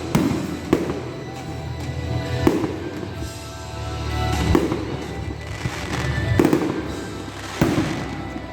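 Fireworks salute going off: about six sharp bangs spaced one to two seconds apart, with music playing underneath.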